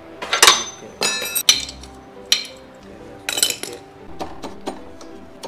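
Metal clinking and knocking: about half a dozen sharp strikes, the loudest near the start, one of them ringing on briefly.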